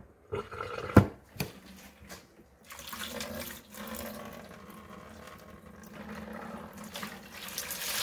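A few sharp clicks, then from about three seconds in soapy wash water runs out of a KUPPET twin-tub portable washer's drain hose and splashes into a plastic bucket, the machine being drained after its wash cycle.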